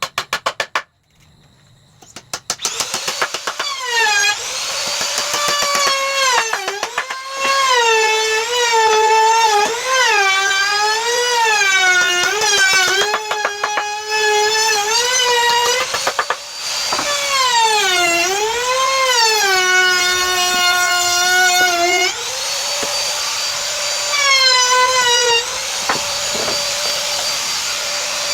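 Electric power tool's motor running in a woodworking job, its whine dipping and recovering in pitch again and again as it bites into the wood under load. A rapid series of clicks comes first, over about the first two seconds.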